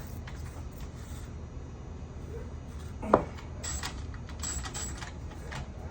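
Milwaukee M12 Fuel 3/8-inch cordless ratchet working on a seized bolt that it fails to break loose. There is a sharp metallic clank about three seconds in, then a few short bursts of high whirring.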